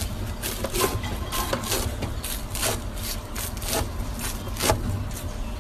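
A knife cutting through crisp, flaky kol böreği (rolled Turkish filo pastry) on a tray: a run of irregular crackly crunches, two or three a second, over a low steady hum.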